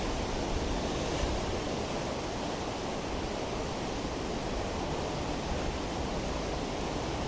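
A river in flood rushing past, a steady, even wash of water noise.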